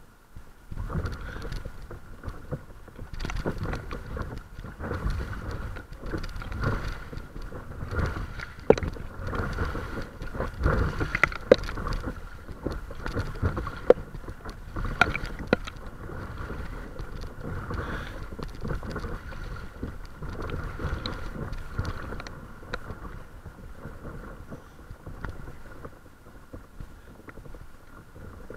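Water splashing and sloshing against the bow of a paddled boat, surging with each paddle stroke, with a few sharp knocks.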